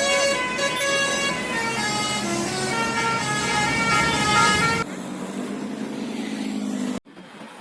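Bus 'telolet basuri' multi-tone musical horn playing a stepping melody of held notes, cutting off suddenly about two-thirds of the way through; a quieter, steady hum follows.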